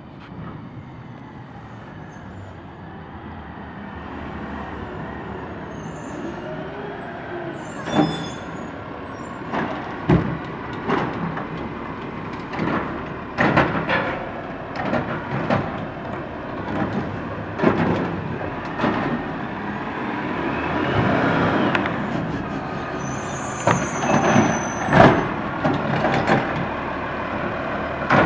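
Autocar ACX garbage truck with a DaDee Scorpion automated side-loader arm. The engine grows louder as the truck pulls up, then comes a string of sharp bangs and clanks, roughly one a second, as the arm grabs, lifts and shakes out a trash cart. Air brakes hiss.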